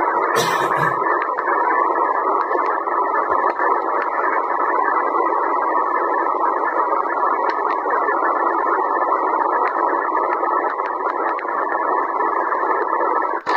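Sihuadon D-808 shortwave receiver's speaker giving steady static on the 15-metre amateur band in upper-sideband mode, a narrow, muffled hiss with no clear voice coming through. A brief rustle about half a second in.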